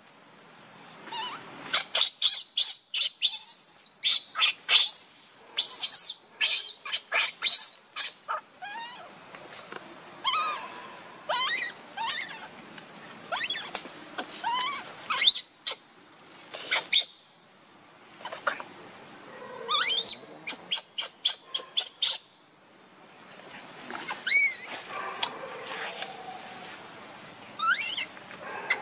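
Baby macaque crying in short, high-pitched calls that sweep up and down in pitch, coming in quick runs for the first several seconds and then more spaced out, over a steady high insect drone.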